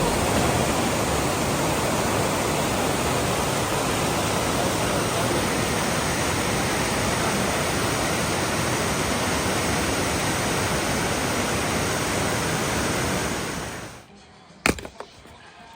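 A steady, even rushing noise that cuts off suddenly about fourteen seconds in, followed by a single sharp click.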